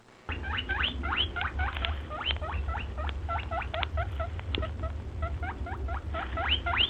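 A small animal squeaking: a fast series of short, rising squeaks, about four a second, over a low rumble.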